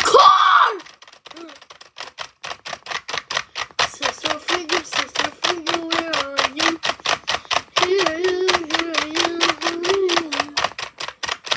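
A child's voice humming a tune in long, held notes, over a fast, even clicking of about seven clicks a second.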